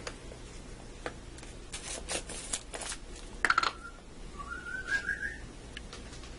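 Spice shaker jar clicking and tapping as onion powder is shaken out into a palm, with a short high whistle-like note about two thirds of the way through.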